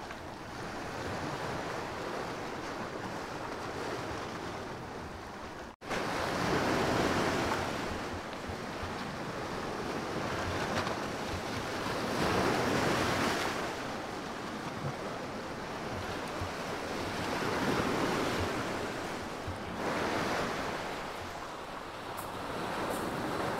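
Sea waves breaking and washing up a shell-and-pebble beach, swelling and fading every few seconds, with some wind on the microphone.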